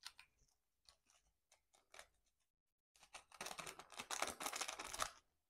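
A plastic-foil sauce sachet being handled: a few faint ticks, then from about three seconds in a couple of seconds of dense crinkling as the packet is worked open in the fingers.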